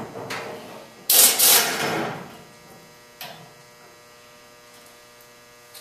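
Air-powered wrench on a shop air hose running in one burst of about a second, driving a caster-wheel bolt on an engine hoist leg, then a short click. A steady hum sits underneath.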